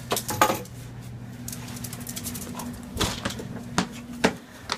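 Dog's claws and paws clicking and knocking on stairs as she goes up and down them: a quick cluster of sharp clicks about half a second in and a few more single knocks near the end, over a steady low hum.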